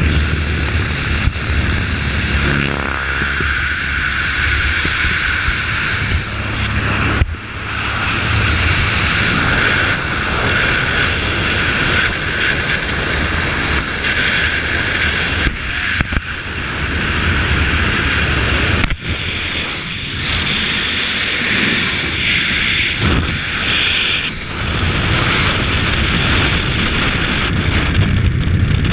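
Loud, steady rush of wind and the propeller engine of a small single-engine plane with its door open in flight. Later this gives way to freefall wind rushing over the microphone after the jump.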